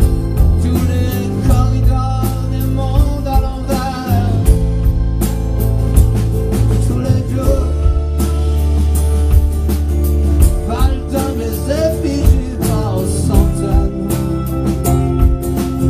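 Live rock band playing, with a man singing over guitar and a steady beat.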